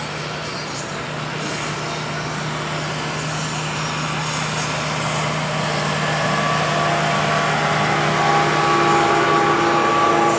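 Fendt diesel tractor engine running hard under load as it drags a tractor-pulling sled, a steady drone that grows louder toward the end as the tractor comes closer.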